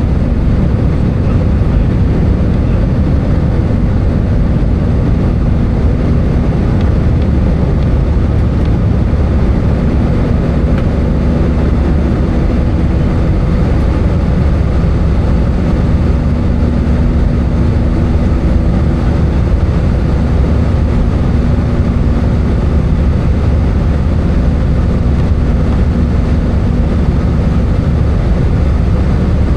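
Airbus A320 cabin noise heard from a window seat in flight: a steady drone of the engines and rushing airflow, with a faint constant hum on top.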